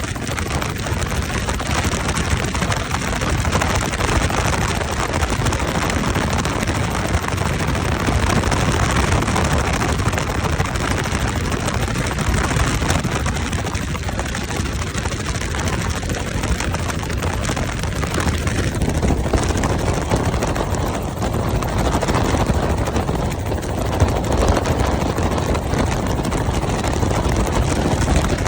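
Helicopter engine and rotor running steadily, a loud even noise with most of its weight low down.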